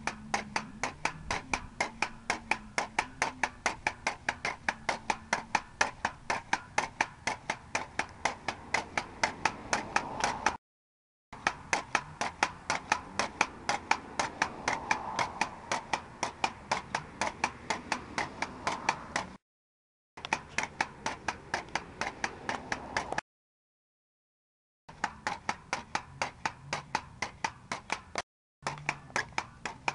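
Pogo stick bouncing on asphalt: a steady run of sharp impacts, about three a second. The sound cuts off completely and resumes several times.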